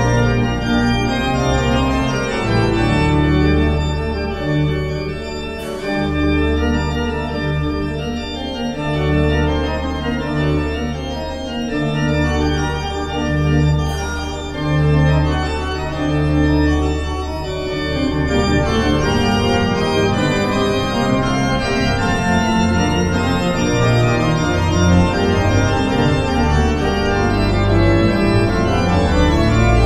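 Pipe organ playing a slow piece of sustained chords over deep pedal bass notes that change about once a second.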